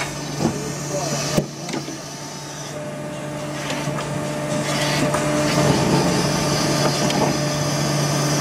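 Injection moulding machine running a PVC elbow pipe-fitting mould: a steady low hum with two sharp clicks in the first second and a half, then a rushing noise that grows louder toward the end.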